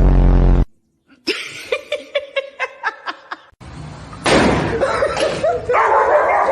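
A person laughing, first in a quick rhythmic run of short 'ha' pulses, then in louder, breathier laughter. It is opened by a short, loud, low buzzing sound about half a second long.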